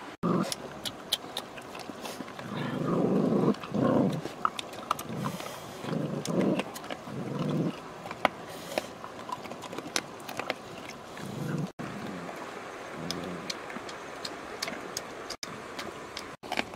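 Several dogs eating together from a basket: wet smacking and crunching clicks, with repeated short low growls as they crowd over the food.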